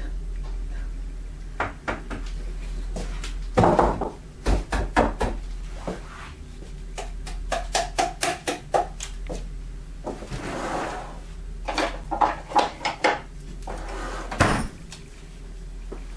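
Plastic jar of a Revoblend blender being handled and knocked while thick walnut paste is emptied into a cheesecloth-lined sieve: a run of irregular knocks and clicks with a few short scraping, rustling passages, over a steady low hum.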